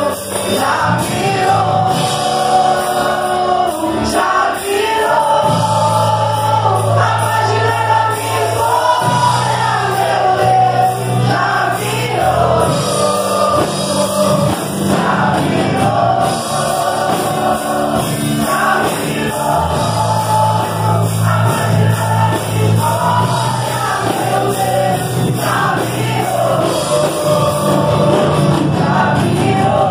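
Youth choir singing a gospel song together, many voices over a steady bass accompaniment.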